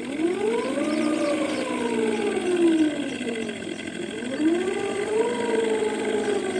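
Ola S1 Pro electric scooter's artificial 'Vintage' mood sound, a synthesized old-scooter engine note from its speaker. The note rises with throttle over the first second, falls away until about four seconds in, then rises again and holds steady.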